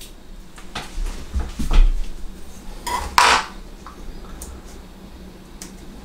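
A person moving at a computer desk: scattered light clicks and knocks, a few dull thumps between one and two seconds in, and a short breathy rustle a little after three seconds.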